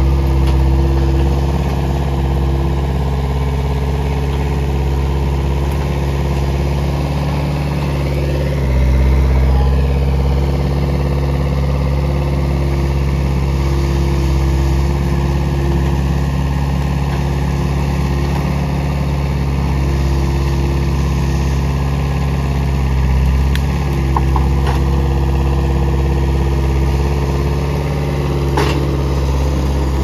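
New Holland skid-steer loader's engine running steadily as the loader maneuvers and lifts a log, its note shifting and growing louder about a third of the way in. A sharp knock near the end.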